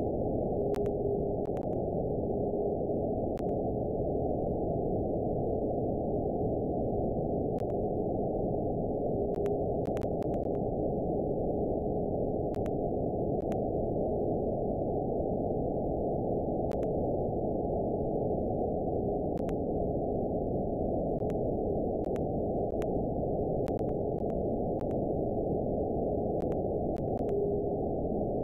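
Shortwave-radio-style receiver hiss from an RTL-SDR tuned to the 49.75 MHz TV video carrier, with a faint steady beat tone around 400 Hz: the carrier of a distant Russian TV transmitter reflected by meteor trails. The tone swells briefly several times, about a second in, around ten seconds and near the end, as meteor echoes strengthen the signal. Faint scattered clicks sit above the noise.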